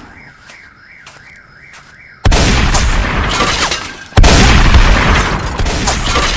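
A fading boom, then two more loud sudden booms about two seconds apart, each dying away over a second or two. Between them is a quieter warbling, alarm-like tone that rises and falls a few times a second.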